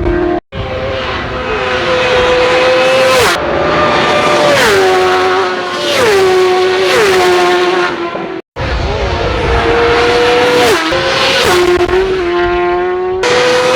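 Racing superbikes at full throttle passing one after another at close range, each engine's high-pitched note holding and then dropping sharply as the bike goes by. The sound cuts out briefly twice.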